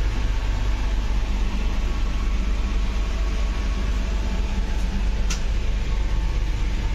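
Steady running rumble of an Indian Railways express coach in motion, heard from inside its washroom, deep and even with a hiss of track noise over it. A single short click sounds about five seconds in.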